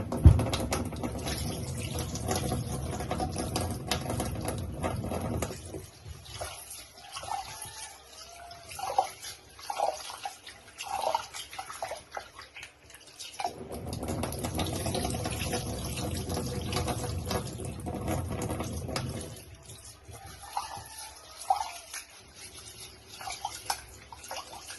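Kitchen tap running while rice is washed, with water sloshing and splashing between two runs of the tap: the tap runs for about five seconds at the start and again for about six seconds midway. A sharp knock just at the start.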